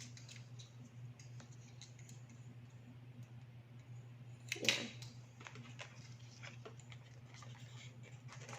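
Faint small clicks and scratches of hands working at an earbud package to get it open, with one louder brief rustle about four and a half seconds in, over a steady low hum.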